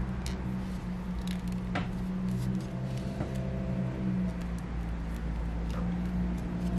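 Steady low hum with scattered light clicks and ticks of hands handling small jewellery-making parts on a wooden table.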